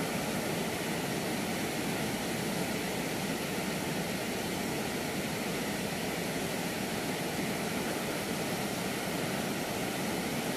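Turbulent river water rushing out through the open sluice gates of a barrage: a steady, unbroken rush.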